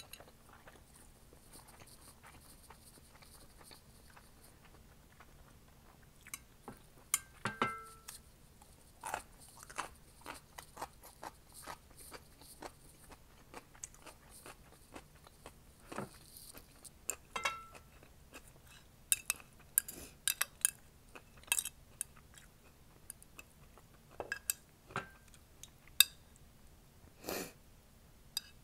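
Close-miked chewing and mouth sounds of a person eating: quiet at first, then from about six seconds in a run of irregular sharp, wet clicks and small crunches.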